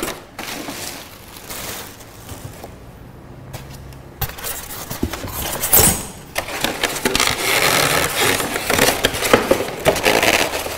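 Styrofoam packing and a cardboard box being handled during unpacking: irregular rustling, scraping and crackling, with a sharp knock about six seconds in and busier handling after it.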